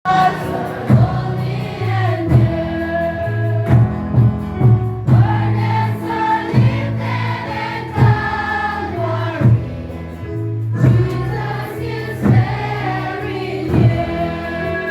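Choir singing a Christian song over a steady bass line and beat.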